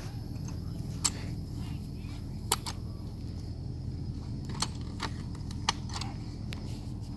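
Telescoping ladder being extended, its sections clicking into their locks in several sharp metallic clicks, irregularly spaced about a second apart.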